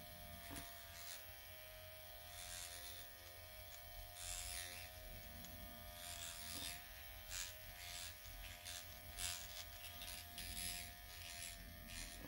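Dr. Pen electric microneedling pen buzzing quietly and steadily as its needle tip is run over the cheek, with irregular brief scratchy noises over the buzz.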